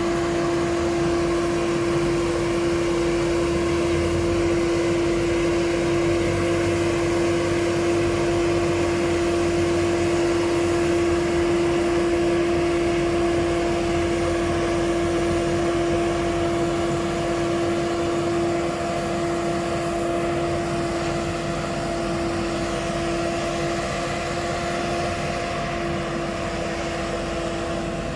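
Street sweeper truck running while sweeping, a steady machine drone with a strong, unchanging hum. It grows a little quieter in the last third as the truck moves away.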